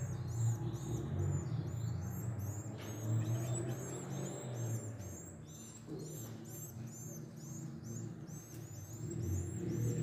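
Canary nestlings begging, a fast, unbroken run of short high-pitched chirps, about four or five a second, while they are fed.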